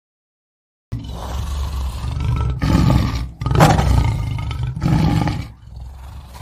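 Lion roaring: a run of loud, deep roars in several surges starting about a second in, growing weaker near the end.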